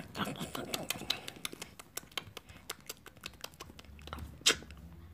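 Rapid, irregular mouth clicks and smacks: a person imitating greedy chewing, with one louder smack about four and a half seconds in.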